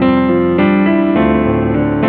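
Yamaha arranger keyboard on a piano voice, played with both hands: a melody over sustained chords and a bass line, with a new chord struck about every half second and the notes ringing on.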